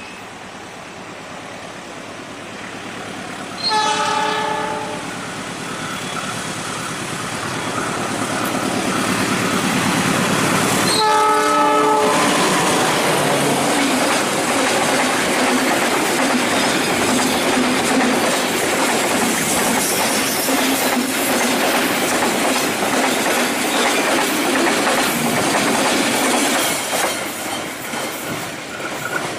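Diesel-hauled fuel-tank freight train: the locomotive sounds its horn twice, a short blast about four seconds in and another about eleven seconds in, as it approaches and passes. After it, the long string of tank wagons rolls by with steady wheel clatter over the rail joints, easing slightly near the end.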